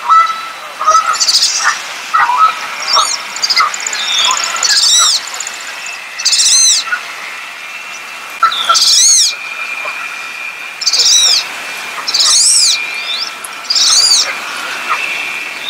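Wood duck calling: a series of about eight thin, high whistles, each rising then falling, spaced one to two seconds apart.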